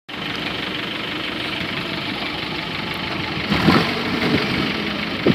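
Engine of a UAZ off-road vehicle idling steadily, a little louder from about three and a half seconds in.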